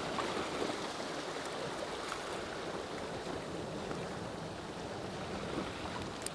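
Sea water sloshing and washing steadily, an even rush of water noise, with one faint click near the end.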